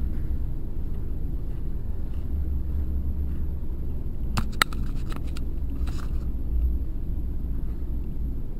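Steady low rumble with a quick run of about six sharp clicks about halfway through, the second the loudest, and a fainter rustle a second later.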